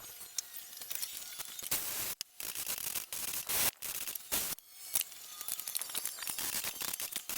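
Irregular scraping, rasping and clicking of hand tools working a sheet-metal repair piece, cleaning it up for welding, with no motorized tool running.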